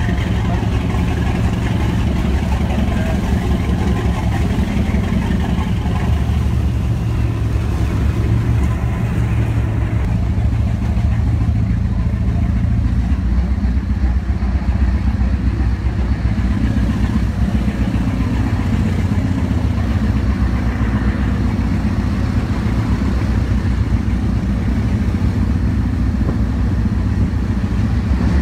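Pilot boat's engine running steadily, its low note shifting a little around the middle.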